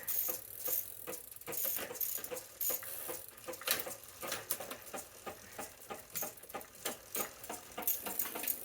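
Light, irregular clicking and rattling of small metal parts and tools being handled during bike work, several taps a second.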